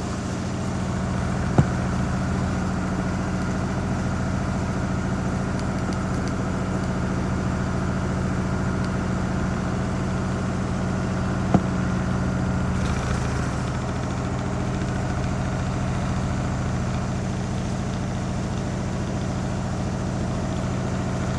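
Washing machine spinning steadily in its final spin cycle, a constant motor-and-drum hum at roughly 1,000 RPM by the owner's estimate. Two sharp clicks stand out, about a second and a half in and again about ten seconds later.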